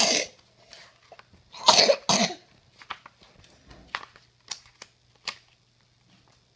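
A person coughing: one sharp cough at the start, then two quick coughs close together about two seconds in. A few faint clicks follow.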